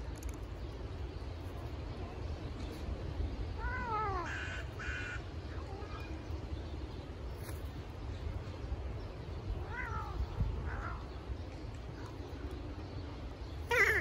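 Domestic cat yowling in several short calls that slide down in pitch, the loudest near the end, while it guards its food from gulls and a crow.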